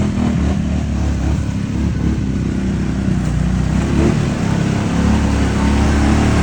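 ATV engine running under throttle, its pitch rising and falling.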